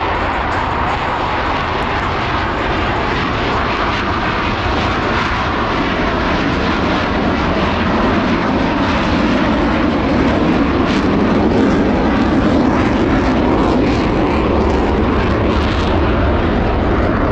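Jet engines of two F/A-18 Super Hornets flying a slow, nose-high high angle-of-attack pass: a continuous jet roar that grows louder about halfway through as the jets come closer.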